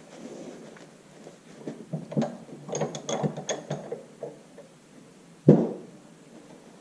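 A run of quick, irregular clicks and taps from tools and seal parts being handled, then one louder knock about five and a half seconds in.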